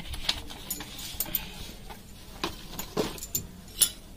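Scattered sharp clicks and light knocks, about half a dozen, spread unevenly over a few seconds.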